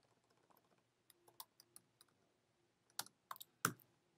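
Keystrokes on a computer keyboard: a few faint, scattered clicks, then three louder ones about three seconds in.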